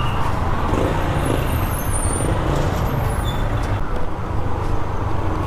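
Motorcycle being ridden through street traffic: its engine running steadily under a continuous low rumble of road and wind noise.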